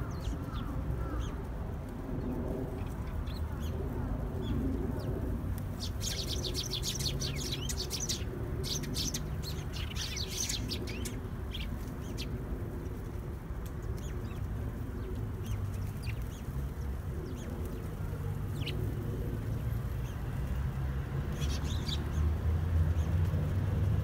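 Eurasian tree sparrows chirping in quick high bursts, busiest from about six to eleven seconds in and again near the end, over a steady low rumble.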